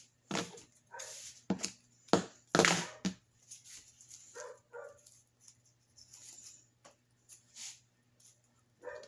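A household pet making two short calls about halfway through, among sharp clicks and knocks of things being handled on a table, the loudest two to three seconds in.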